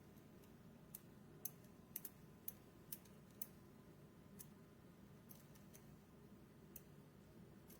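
Faint, sharp clicks of small hard objects being handled, about a dozen at irregular intervals, most of them bunched together about a second to three and a half seconds in.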